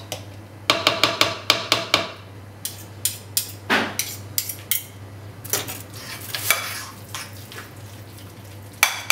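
Metal fork and spoon clinking and scraping against a ceramic bowl while mixing a thick fish-and-egg paste. There is a quick run of sharp clinks about a second in, then slower taps and scrapes, and another few clinks near the end.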